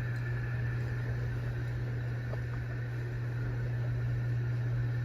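Harbor Breeze Breezeway ceiling fan running on high, a steady motor hum over the rush of the blades. The owner says the fan has a humming issue and that its bearings are pretty bad.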